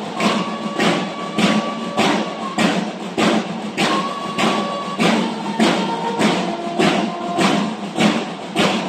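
A banda de guerra drum and bugle corps playing: drums beat a steady march rhythm about twice a second while the bugles hold long sustained notes, changing pitch a few times.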